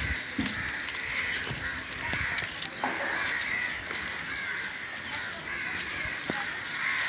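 Many birds calling over one another without a break, the calls overlapping into a steady chorus.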